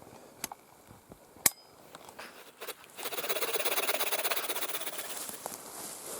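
Dry twigs and branches snapping with a few sharp cracks, the loudest about a second and a half in, then a dense crackling rustle from about three seconds in.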